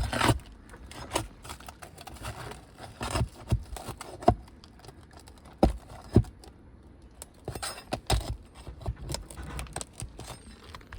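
Pry bar scraping and clicking against 3-tab asphalt shingles as they are pried up off their nails, with scattered sharp knocks and short scrapes. The shingles are very brittle.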